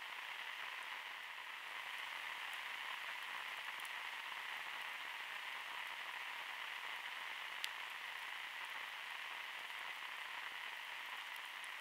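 Steady hiss of a trail camera's audio, with a single faint click about eight seconds in.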